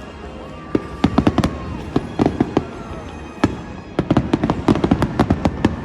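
Fireworks show: rapid bangs and crackles of bursting shells. They come in dense clusters about a second in and again through the last two seconds.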